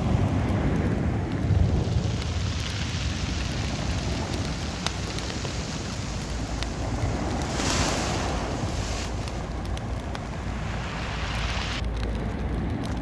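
Sea surf and wind rushing, with a low rumble underneath; one wash swells up about eight seconds in, and the hiss drops away suddenly near the end.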